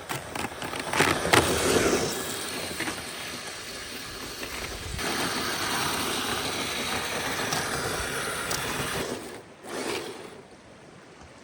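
Kyosho Blizzard 2.0 RC snowcat driving through snow: its small electric motor and gearbox whirring and its rubber belt tracks churning the snow. The sound swells and fades as it moves, loudest in the first couple of seconds and quieter near the end.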